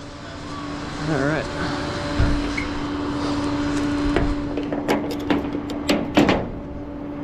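Steady hum of a rollback tow truck's hydraulics or winch running, starting about two seconds in, with several sharp metallic clanks and clicks in the second half.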